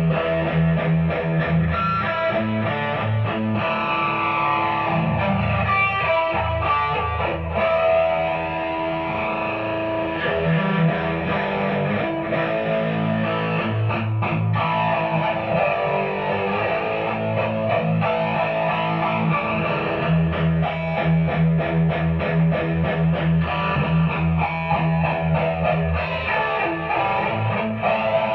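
Mexican-made Fender Stratocaster electric guitar played through a Marshall DSL40C amplifier, a continuous run of notes and chords with no breaks.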